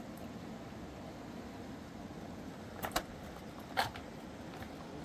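Steady rushing of a large river, with a couple of short sharp clicks about three and four seconds in as the catch is handled.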